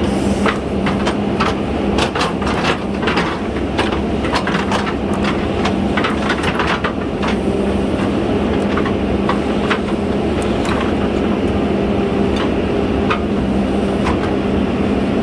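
JCB 3DX Super backhoe loader's diesel engine running steadily under load, with frequent sharp knocks and clanks scattered throughout.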